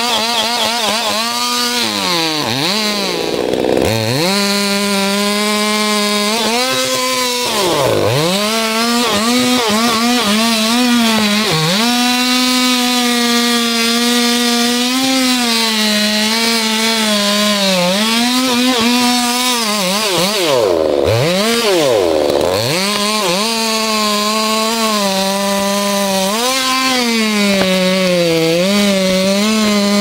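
Two-stroke chainsaw running at high revs while cutting into the base of a big tree trunk, its note wavering under load. Several times the throttle is let off, so the engine drops briefly toward idle and then revs straight back up.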